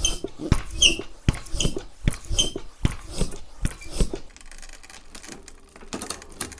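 Bicycle tire being inflated with a hand pump: about ten quick pump strokes, each a short push of air with a knock, roughly two to three a second. The pumping stops about four seconds in, and a few faint clicks follow.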